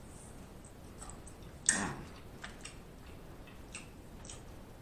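Close-miked mouth sounds of a person eating snow crab: scattered soft lip smacks and wet clicks, with one louder smack just under two seconds in.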